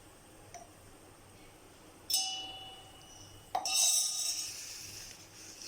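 A spoon clinking twice against a dish while spice powder is being added, each strike ringing out briefly, the second brighter and longer.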